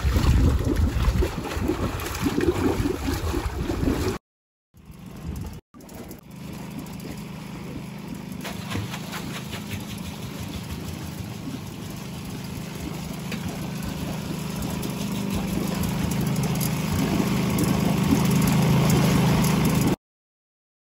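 Water rushing through a steel waterwheel in a stream, then, after a short break, water splashing from a wooden flume onto the turning wheel's buckets with a steady low hum that grows louder before cutting off suddenly.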